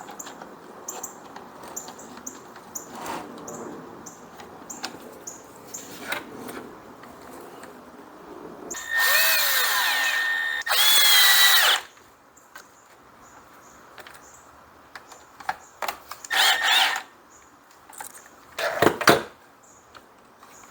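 Power drill running in two bursts of about two seconds and one second, its motor pitch rising and falling, with two shorter bursts later. Light clicks of parts being handled come before it.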